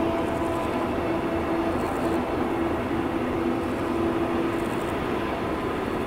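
BB 67400-series diesel locomotive hauling a freight train, its engine running with a steady hum over the rumble of the train.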